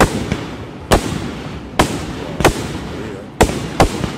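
Aerial firework shells bursting in a display: about six sharp bangs in four seconds, irregularly spaced, each trailing off in an echo.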